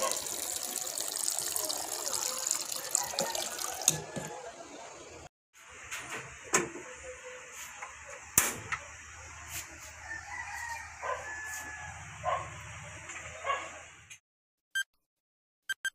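Water pouring from a plastic water container's tap into a steel pot of peeled sweet potato chunks, splashing for about four seconds. After a short break, a steady hiss and low hum with a few sharp clicks and knocks as the lidded pot sits on a gas stove and the burner knob is turned. Short electronic beeps of a countdown follow near the end.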